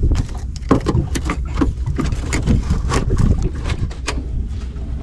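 Irregular splashing and knocking from a squid trap being handled in water, over a steady low rumble.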